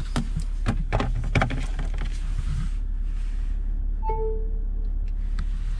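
A phone being set into a car's centre-console wireless charging tray: a few light plastic clicks and knocks, then about four seconds in a short falling two-note electronic chime as charging starts, over a steady low cabin rumble.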